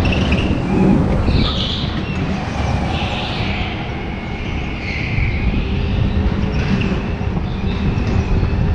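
Go-kart engine running at racing speed, heard onboard with the heavy rumble and rattle of the kart's chassis on the track, and short higher-pitched squeals now and then.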